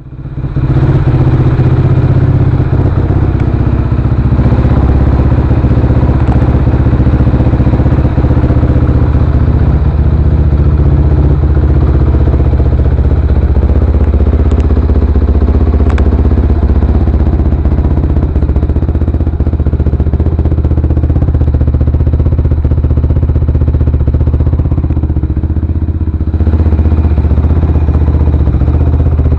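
Suzuki LT-R450 quad's single-cylinder four-stroke engine running at a steady idle through a full Yoshimura RS-5 exhaust, loud and close, with no revving. It gets a little louder about 26 seconds in.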